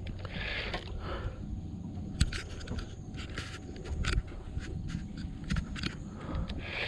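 Scattered small clicks and knocks from handling a fishing rod and reel while twitching a popping-cork rig, over a steady low rumble of wind on the microphone.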